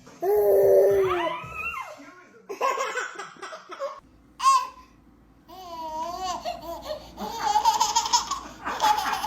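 A small child laughing and babbling in several bursts, ending in a long run of laughter near the end.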